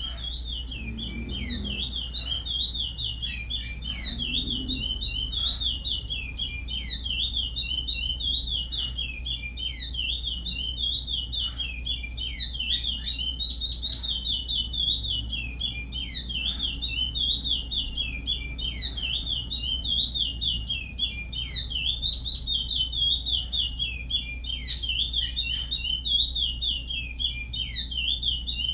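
Curió (chestnut-bellied seed finch) singing its Paracambi-type song, a rapid, unbroken warble of quick up-and-down whistled notes.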